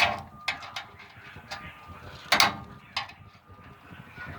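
Scattered metal clicks and taps as needle-nose pliers work a cotter pin in the trailer's tandem-slide pin linkage, spreading its legs to lock it; the loudest click comes about two and a half seconds in.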